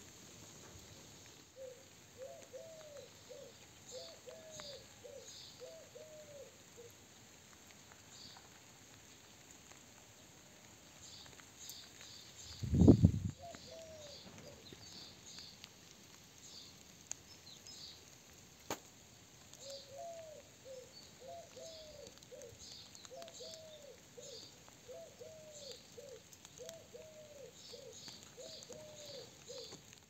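Birds calling: one bird gives runs of low, paired hooting notes, first a few seconds in and then again through the last ten seconds, while small birds chirp briefly and high throughout. A dull low thump about halfway through is the loudest sound.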